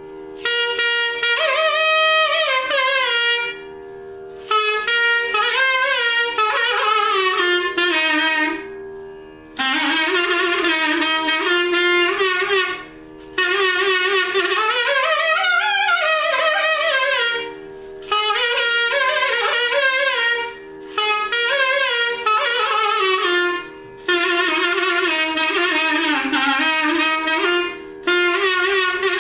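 Carnatic-style melody played on a reed wind instrument over a steady drone. It comes in phrases a few seconds long, separated by brief pauses, with notes sliding up and down between pitches.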